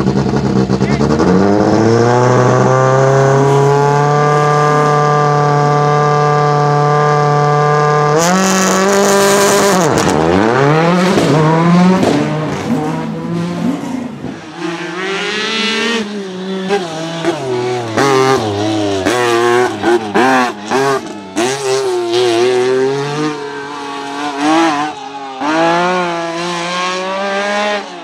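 Rally car engine held at steady high revs, then launched hard about eight seconds in with a burst of tyre noise and revving up through the gears. Later, rally car engines revving up and down hard on the stage, with repeated sharp cracks.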